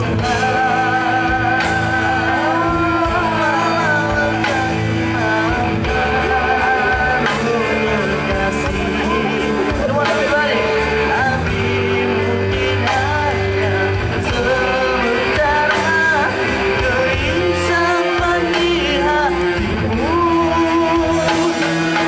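Male pop singer singing live into a handheld microphone over amplified band accompaniment with guitar, the held notes sung with vibrato.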